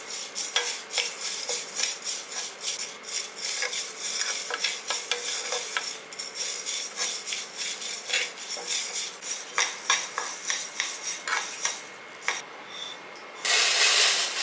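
Horse gram seeds being dry-roasted in an aluminium pan and stirred with a metal spoon: dry seeds rattling, with the spoon scraping and clicking against the pan. Near the end, the roasted seeds are poured out of the pan onto a banana leaf in one loud, dense rush.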